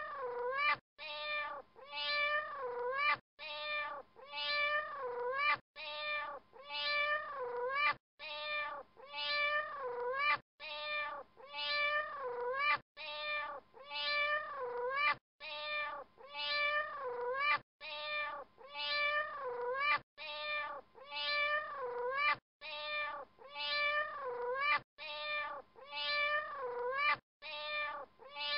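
Looped soundtrack of cat meows: the same short phrase of about four meows repeats identically every two and a half seconds or so.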